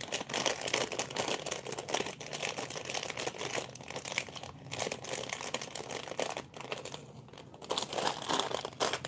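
Clear plastic bag of loose toy-brick pieces crinkling as it is handled and squeezed, a dense crackle of plastic film that gets louder near the end.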